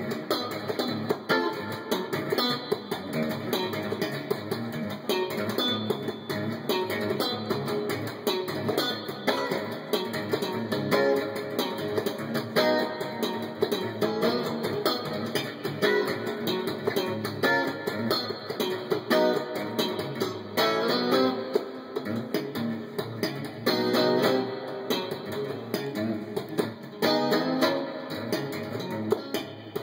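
Yamaha Pacifica electric guitar played with slap technique: funky riffs of thumb-slapped and popped strings, a fast run of sharp percussive notes.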